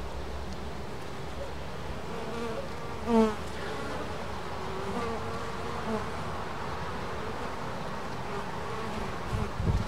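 Honeybees buzzing at a hive entrance: a steady hum of foraging traffic during a nectar flow, with single bees buzzing loudly past close by, the loudest about three seconds in.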